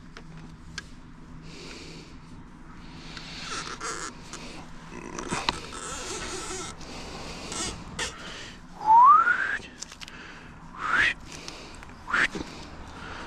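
Paint being poured from a can into a roller tray, then a paint roller worked back and forth in the wet tray, with scattered squelching and scraping. Three short rising squeaks come near the end, the first the loudest.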